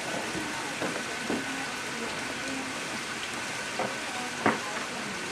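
Steady hissing outdoor forest ambience with a faint, steady high tone running through it, broken by a few soft knocks and one sharp click about four and a half seconds in.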